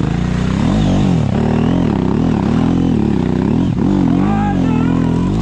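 Motorcycle engine revving up and down over and over, its pitch rising and falling about once a second, as on an off-road ride.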